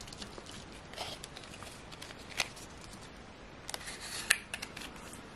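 Paper and thin card packaging inserts being handled: faint rustling and scraping with scattered sharp clicks, one about two and a half seconds in and a small cluster near four seconds.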